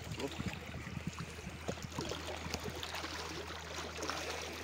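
Small waves lapping on a rocky lakeshore: a steady wash with many small scattered splashes and clicks, over a low steady hum.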